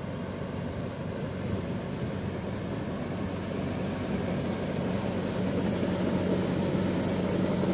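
World rice combine harvester's engine running steadily while unloading threshed paddy. A hiss grows about five seconds in as grain streams down the unloading spout into a sack.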